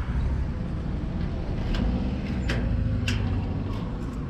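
A bunch of keys jingling and clicking as a key is fitted into a door lock: about five short metallic clicks in the second half, over a steady low background rumble.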